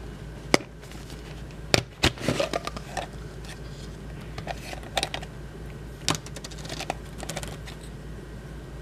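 Hard plastic toy capsule from a chocolate surprise egg being opened and its small plastic toy pieces handled: scattered sharp clicks and light clattering of plastic, with the loudest clicks in the first two seconds.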